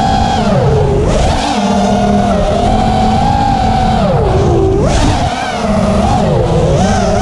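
FPV racing quadcopter's motors and propellers whining, the pitch swelling and falling with every throttle change; it drops low about four seconds in and climbs sharply back about a second later.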